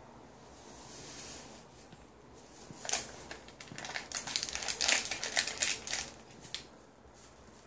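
Paper gelatin envelopes crinkling and rustling as they are shaken and handled over a plastic bowl, a dense run of crackly rustles from about three seconds in until near the end, after a soft hiss about a second in.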